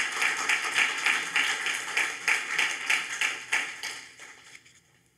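Audience clapping after a poem, a dense patter of hand claps that fades out about four seconds in.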